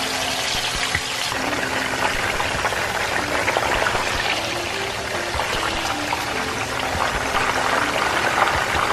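Whole marinated chicken frying in hot oil in a wok, sizzling steadily with a dense spatter of crackles.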